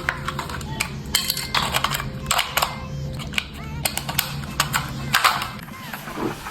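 Plastic toy racing car being handled and tested: a run of sharp, irregular clicks and clatters over a steady low hum.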